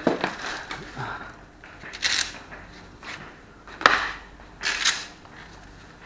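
Plastic carrier bag crinkling in a few short bursts as it is carried, with one sharp click partway through.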